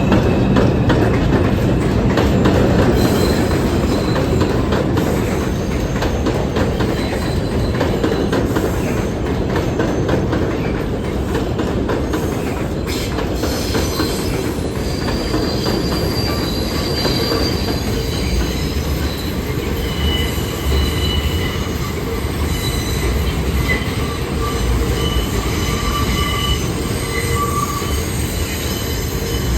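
New York City subway train of R142 cars running along the rails, with a steady heavy rumble of wheels on track. About halfway through, several high squealing tones from the wheels come in and carry on.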